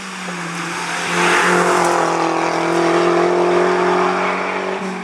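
Engine of a SEAT León hatchback race car driving hard past close by, loudest from about a second in and easing near the end as it pulls away.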